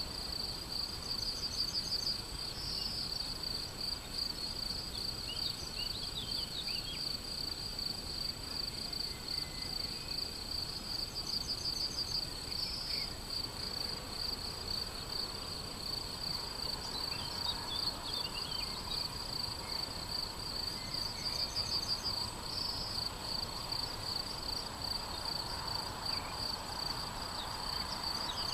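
Crickets trilling continuously in a meadow, one high steady pulsing note. A bird sings a short phrase about every ten seconds over it, with a few scattered chirps, against a low outdoor background hum.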